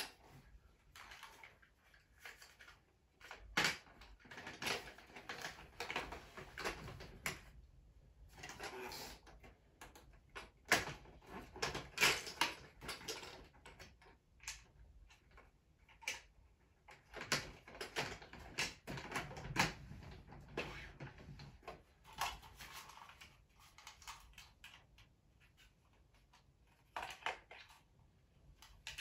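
Hard plastic Playmobil train cars being handled and clipped together: irregular clicks, knocks and light rattles of plastic parts.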